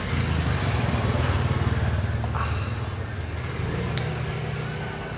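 A motor vehicle's engine running close by, a low rumble that swells in at the start and slowly fades over the next few seconds. A couple of faint clinks of a metal spoon against a plate come over it.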